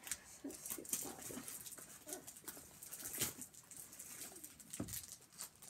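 Rustling and handling of packaged gifts as things are pulled out of a Christmas stocking: a string of small clicks and crinkles, with a few short low sounds in the first second or so.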